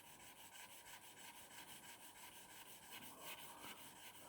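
Stainless steel broadhead blade rubbed back and forth in quick, even strokes on wet 1500-grit wet-and-dry sandpaper, a faint rhythmic scraping.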